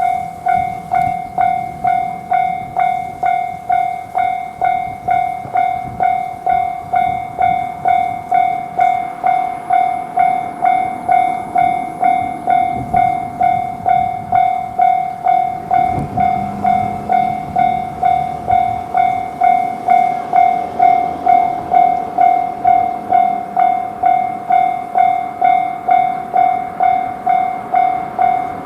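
Japanese railway level crossing warning bell switching on and ringing its loud, steady "kan-kan" tone at about two strokes a second.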